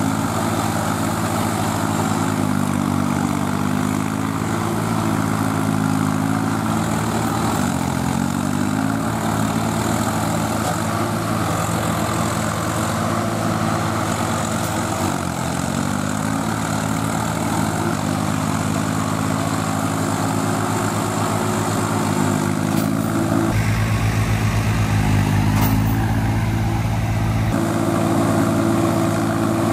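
Several diesel tractor engines working hard together, the nearest a Swaraj 855 FE, as they strain to pull a tractor bogged in deep mud. The engine notes repeatedly dip and recover under the load, with a louder, steadier stretch of a few seconds near the end.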